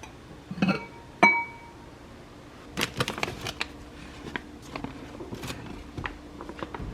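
Two sharp knocks with a short ring, about half a second and a second in, then a run of quick light clicks and taps from about three seconds in, as of small hard objects being handled and set down.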